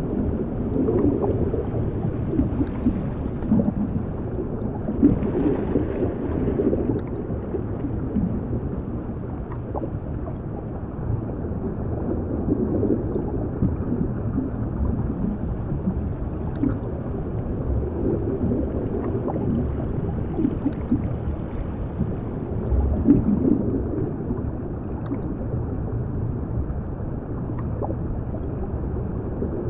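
Muffled underwater sound: a low, continuous rumble with clusters of bubbling and gurgling that swell every five or six seconds.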